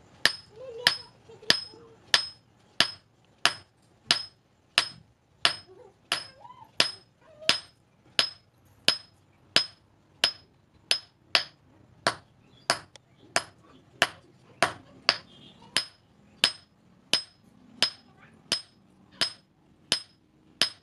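Hand hammer forging a hot steel knife blank on an anvil. The blows come at a steady pace of about three every two seconds, each with a short, high ring.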